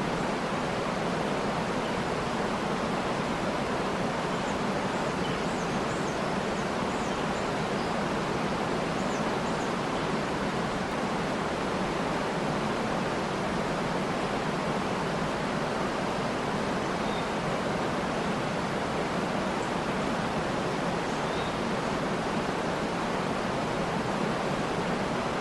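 Waterfall: steady rushing water with no change in level, and a few faint, brief bird chirps high above it.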